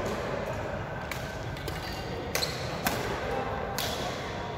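Badminton rackets striking a shuttlecock: several sharp smacks at irregular intervals, the loudest near the middle, echoing in a large sports hall.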